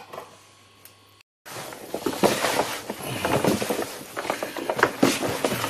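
Hands kneading raw pork pieces and liver with seasoning in a plastic tub: a dense, irregular run of slaps and squishes that begins about a second and a half in.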